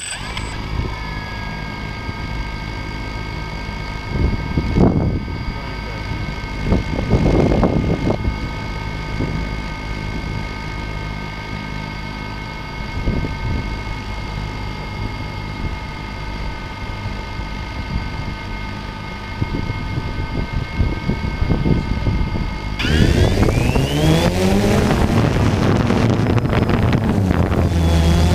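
DJI Phantom 2 quadcopter's four electric motors and propellers starting up, then spinning at idle with a steady whine made of several high tones. About 23 seconds in, the tones rise in pitch and the sound gets louder as the motors throttle up and the drone lifts off.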